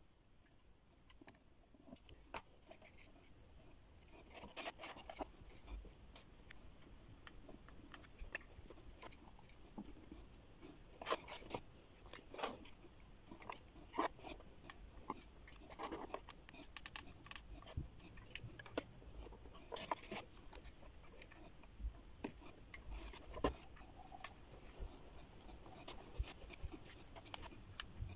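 Faint, irregular clicks, taps and scratchy rubbing from hands working a hot glue gun and pressing jute twine onto a box of wooden ice-cream sticks, with a few sharper clicks standing out.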